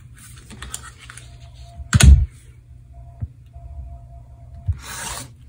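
Rotary cutter cutting through paper and fabric of a paper-pieced quilt block along an acrylic ruler: a few short cutting strokes, with a loud knock about two seconds in and another stroke near the end.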